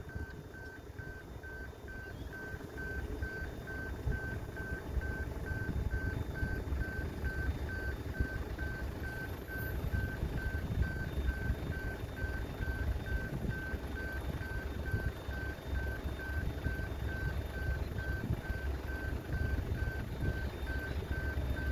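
Low rumble of a distant diesel locomotive hauling a train of empty sugar wagons. A thin, high tone pulses on and off rapidly and evenly over it.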